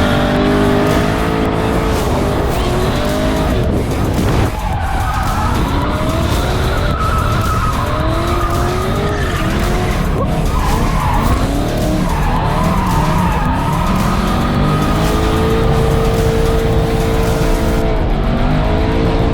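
V8 drift car engine revving hard, its pitch repeatedly climbing and dropping, with tyres skidding as the car is drifted.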